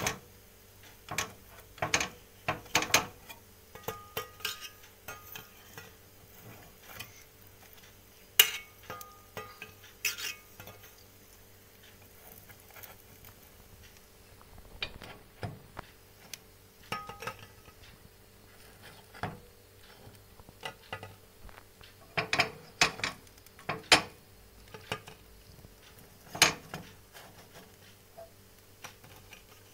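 A metal knife scraping and clicking against a non-stick mould pan as rice-flour cakes are pried out of its cups one by one: irregular taps and short scrapes, with a few sharper knocks.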